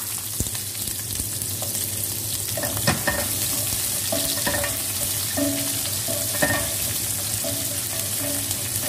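Chopped onions and garlic sizzling in hot oil in a pot, just added, as a spoon stirs them. The spoon scrapes and clicks against the pot a few times around the middle.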